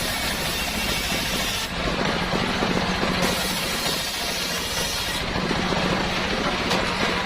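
Homemade motor-driven circular saw rig running steadily. A high hiss over the hum drops away twice and returns.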